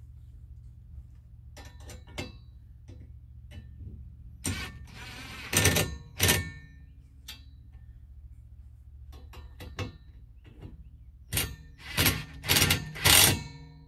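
Cordless impact wrench run in short bursts, snugging the glider's pivot bolts only until the plastic spacers touch the frame. Two groups of bursts, the second a quick run of four, several seconds apart.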